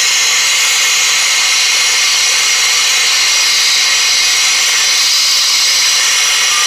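Hose-fed Goss gas torch burning with a steady hiss as its flame heats a rusted, seized pulley nut.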